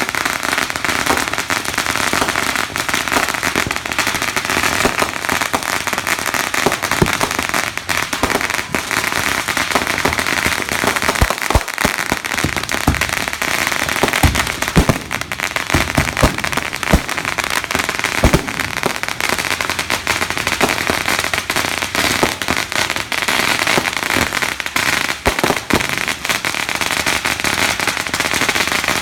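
Fireworks crackling densely and without a break, like strings of firecrackers going off, with several deeper bangs about halfway through.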